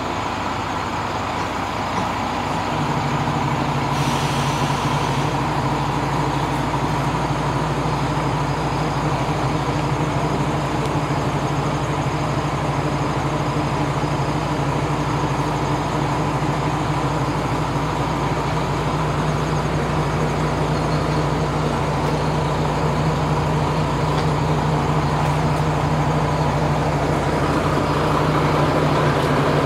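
A diesel railcar's engine idling at the platform with a steady hum; the hum steps up and grows louder a couple of seconds in. A short hiss of released air comes about four seconds in.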